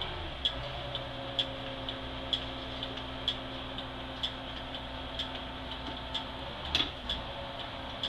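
The flasher relay of a GMC New Look bus clicking evenly, about twice a second with a stronger click each second, over the steady hum of the running engine. A single knock sounds near the end.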